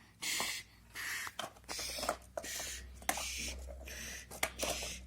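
Toy cargo being tipped out and handled: a series of short scraping, rustling noises, each about half a second long, with small clicks between them.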